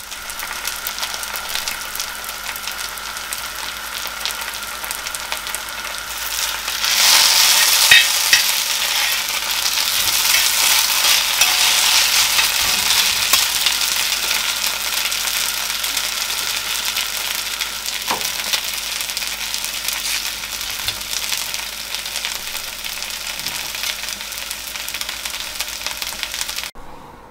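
Korean vegetable pancake (jeon) frying in plenty of oil on a cast iron pot-lid griddle, with a steady sizzle. The sizzle swells louder about seven seconds in, with a few ticks, then slowly fades and cuts off just before the end.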